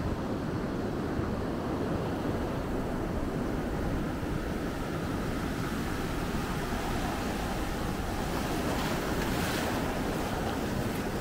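Ocean surf breaking and washing up the beach in a steady rush, swelling into a brighter hiss of washing water about nine seconds in. Wind rumbles on the microphone underneath.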